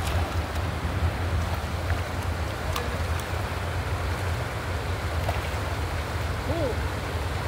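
Shallow river water running over rocks and stones, a steady rushing hiss with a constant low rumble underneath.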